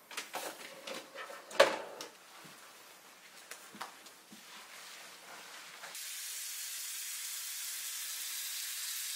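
Gloved hands rubbing and squishing a lathered toner through wet hair in a salon shampoo bowl, with one louder squelch near two seconds in. About six seconds in, the sink's spray nozzle comes on and runs with a steady hiss as the hair is rinsed.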